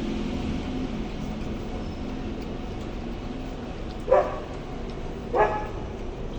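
A dog barks twice, short yelps about a second and a half apart, over a steady low hum.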